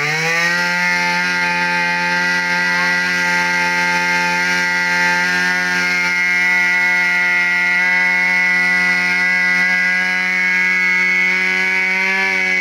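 The 23 cc two-stroke engine of an Echo backpack power sprayer revs up and holds at full throttle, running at a steady high pitch while it drives the pump for a long-reaching spray.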